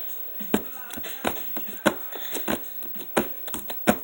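Homemade soap-and-lotion slime with foam beads being squished and poked by hand, giving irregular wet clicks and pops, a few of them sharper and louder.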